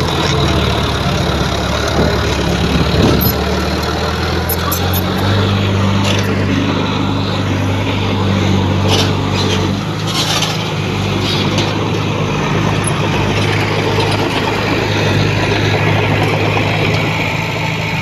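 Heavy diesel engine of construction machinery running steadily under load, its pitch shifting now and then, with occasional light clanks.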